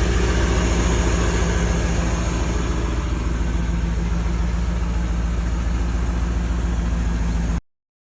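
GMC C6500 truck engine idling steadily with an even low pulse, cutting off suddenly near the end.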